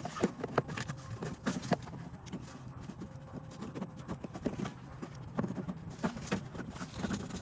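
Irregular light clicks and knocks of a new clutch master cylinder being fitted into its mounting by hand.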